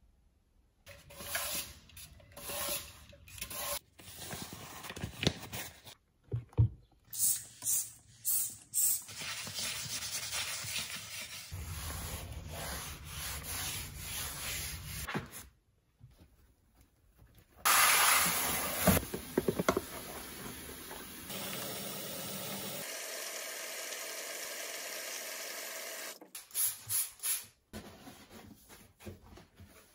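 Cleaning sounds in a string of short takes: a sponge scrubbing and rubbing on ceramic floor tiles in long strokes, broken by pauses and a few knocks. Near the end come shorter strokes of a cloth wiping the rubber door seal of a drum washing machine.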